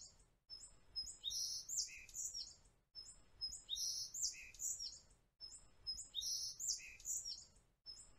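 Looped birdsong ambience: the same short phrase of high chirps and whistles repeats about every two and a half seconds.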